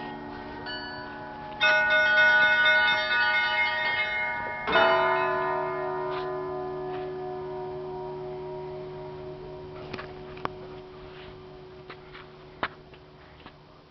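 Russian Orthodox church bells rung before the evening service: a chord of smaller bells struck about two seconds in, then a heavier strike with a deeper bell about five seconds in that hums on and slowly dies away. A few small clicks near the end.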